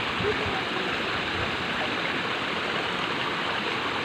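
Steady rush of water flowing along a shallow drainage ditch.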